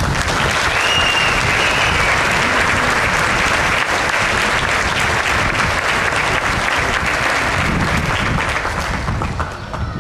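Audience applauding, a dense steady clatter of clapping that fades away near the end.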